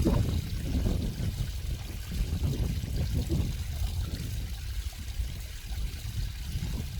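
Flowing water trickling and pouring, a steady, irregular low splashing.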